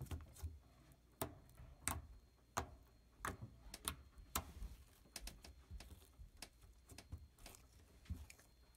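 Faint, irregular small clicks and snaps from homemade glue-and-laundry-detergent slime being kneaded and squeezed by hand. The slime is finished: smooth, soft and no longer sticky.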